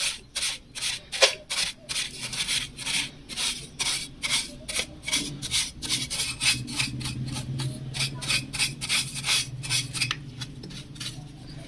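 A brush scrubbing the inside of an industrial sewing machine's oil pan, working dirt and oily sludge loose in quick back-and-forth strokes, about three a second.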